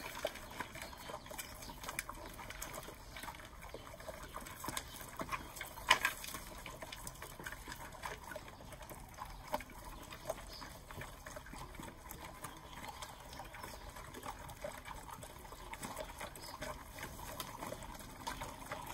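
Several boerboel-mix puppies eating dry kibble from a metal dish: continuous chewing and crunching, a steady patter of many small clicks, with one louder knock about six seconds in.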